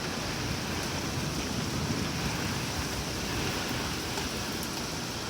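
Rain pouring down steadily: an even, dense hiss with no let-up.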